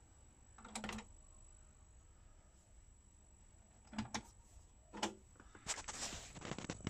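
Transport buttons of a Technics RS-D190W cassette deck clicking: single sharp clicks about a second in, at four seconds and at five seconds. Near the end comes a short cluster of clicks and plastic clatter as the deck A cassette door swings open on eject.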